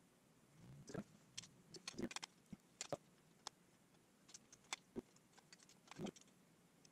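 Faint scattered clicks and light knocks, about a dozen, from hands handling the wiring and parts at a motorcycle's handlebars and headlight.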